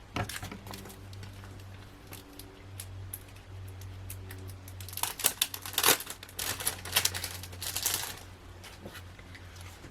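Packaging and paper crinkling and rustling in short crackly bursts as planner die cuts and sticker sheets are handled, busiest and loudest about halfway through.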